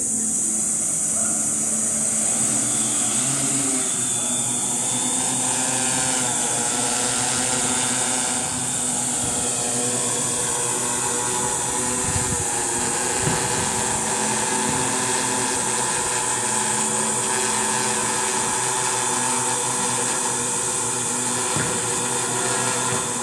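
DJI WK-M octocopter's eight AXI electric motors and APC 12x3.8 propellers buzzing steadily as it flies. The pitch shifts with throttle changes in the first several seconds, then holds fairly steady. A steady high hiss runs throughout.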